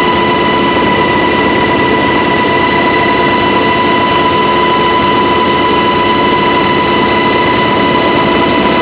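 UH-60 Black Hawk helicopter in flight, heard from on board: a loud, steady din of turbines and rotor with a high, steady whine over it.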